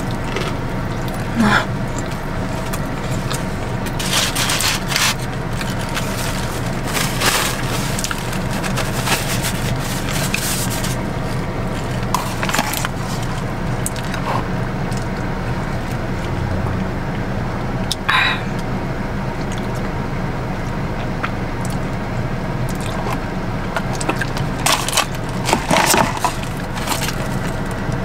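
Close-miked chewing of a crispy fried chicken sandwich: scattered crunches and wet mouth sounds over a steady low hum.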